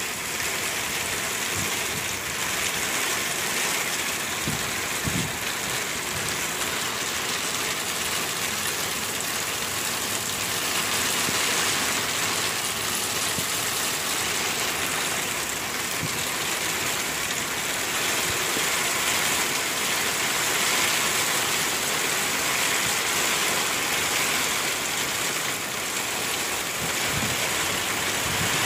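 Heavy rain pouring down in a steady hiss, with a few brief low thumps.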